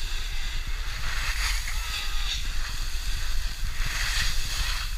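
Wind buffeting the microphone with a steady low rumble, over the hiss and scrape of sliding downhill on packed snow, which swells twice as the riders carve.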